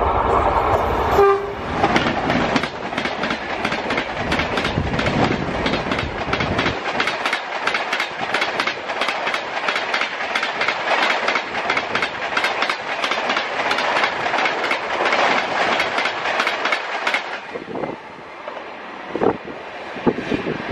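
WAP7 electric locomotive's horn ending about a second in. The locomotive and its coaches then pass at about 130 km/h, with rapid clickety-clack of wheels over rail joints and a heavy rumble while the locomotive goes by. The noise drops away about 17 seconds in as the last coach recedes, leaving a few scattered wheel clicks.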